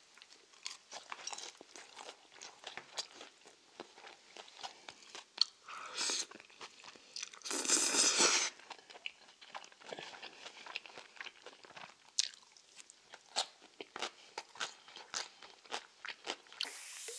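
Close-up eating sounds: crunching bites and chewing of crispy deep-fried tangsuyuk pork, with a loud slurp of jjajangmyeon noodles about eight seconds in. A steady fizzing hiss starts just before the end.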